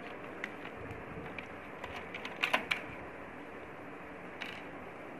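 Scattered light clicks and taps of a screwdriver and fingers working at a projector's circuit board and plastic casing, with a quick run of three sharper clicks about two and a half seconds in, over a steady hiss.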